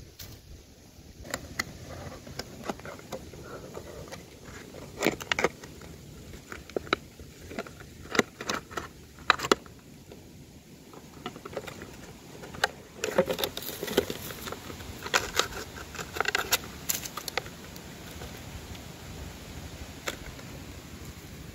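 Thin plastic drink bottle crinkling and crackling as it is squeezed and handled, in irregular clusters of sharp crackles.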